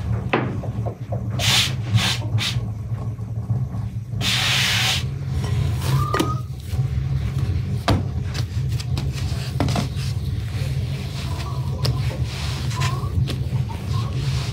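Hands kneading a ball of dough on a large floured wooden board: rubbing and pressing, with scattered knocks of wood.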